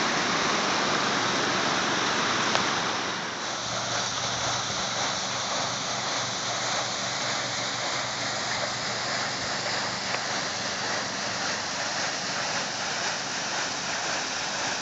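Water rushing and splashing over rocks in a shallow stream. About three seconds in it drops a little and goes on as a softer, steady rush.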